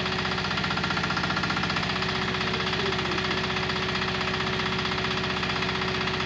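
Excavator's diesel engine running steadily, with an even tone held over it.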